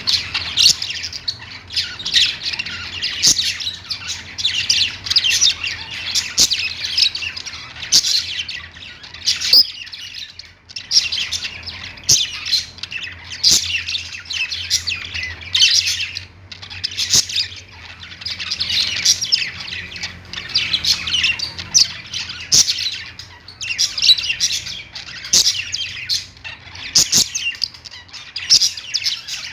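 Budgerigars chattering and warbling: a near-continuous stream of chirps, squawks and warbled notes, broken by a few short pauses, with sharp clicks mixed in.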